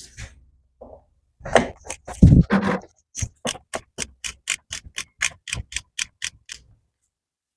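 A few knocks, then a ratchet wrench clicking evenly at about four clicks a second for some three seconds, as the transmission drain plug is unscrewed.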